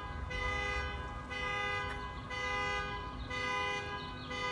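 Car alarm sounding: a steady horn-like tone whose pattern changes about once a second.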